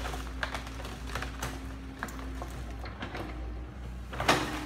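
Kobelco hydraulic excavator's diesel engine running steadily while its bucket works through brush and bamboo, with irregular cracks and clatters. The loudest crack comes near the end.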